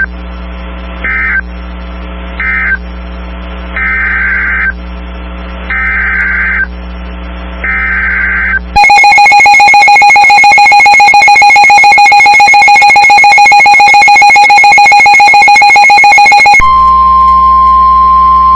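Emergency Alert System broadcast tones on weather radio: several short raspy digital data bursts of the alert header, then the loud, steady two-tone attention signal for about eight seconds, then a single steady tone of another pitch. Together they announce a new emergency message, here a civil emergency message.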